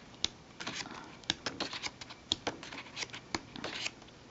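Sheets of patterned scrapbook paper being handled and turned over by hand: scattered crisp rustles and light ticks of paper, irregular and fairly quiet.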